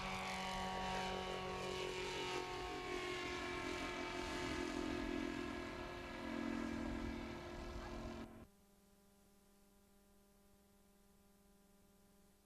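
Goldwing ultralight's engine and propeller droning as it flies past, its pitch falling steadily as it goes by. The sound cuts off abruptly about eight and a half seconds in, leaving only a faint steady hum.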